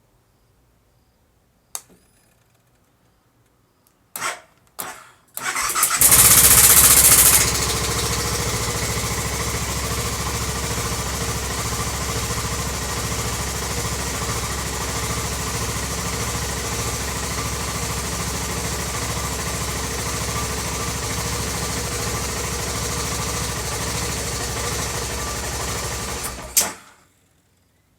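2006 BMW F650GS single-cylinder engine started: a click and two short buzzes, then it catches with a brief loud burst about six seconds in. It settles to a steady idle for about twenty seconds and is shut off near the end.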